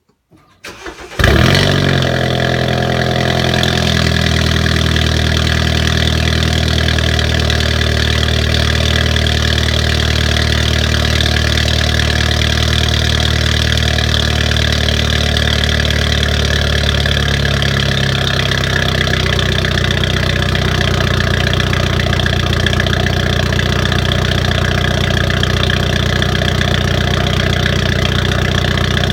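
BMW F30 320i with an M Performance exhaust and downpipe starting up: a brief crank, the engine catching about a second in with a sharp rev flare, then a steady cold-start fast idle from the turbocharged four-cylinder. About two-thirds of the way through, the idle steps down to a lower, slower note as it settles.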